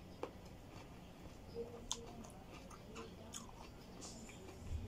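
Faint chewing while eating, with a few scattered small clicks.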